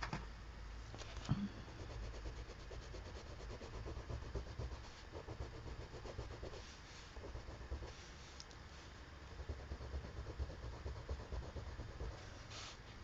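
Faint colored pencil scratching on paper in quick short shading strokes, over a low steady rumble, with an occasional small click.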